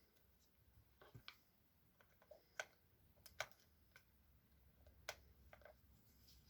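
Faint, irregular light clicks and taps of small hard parts being handled while reassembling a cordless SDS hammer drill: about eight sharp ticks spaced unevenly over several seconds.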